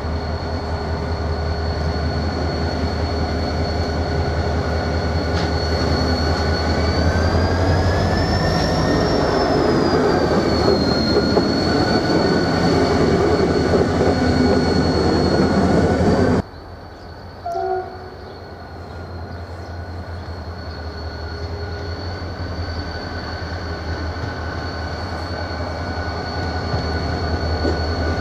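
Renfe class 333 diesel-electric locomotive 333.342 running on the yard tracks: a steady engine drone with a high whine that rises and falls about a third of the way in. Just past halfway the sound cuts off abruptly and comes back quieter, then grows steadily louder as the locomotive approaches.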